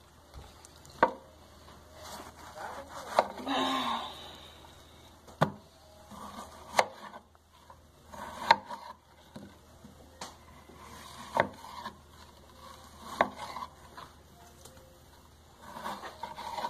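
Knife chopping frozen chicken fillet on a cutting board: about seven sharp single knocks, one every second or two, with a short scrape about three and a half seconds in.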